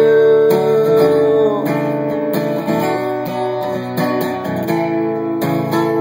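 Acoustic guitar strummed, chords ringing out one after another.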